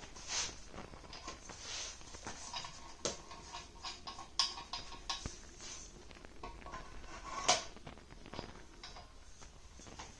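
Handling noise while a metal tripod stand is assembled: scattered light clicks, knocks and rustles, with footsteps on a wooden floor. The sharpest click-and-swish comes about seven and a half seconds in.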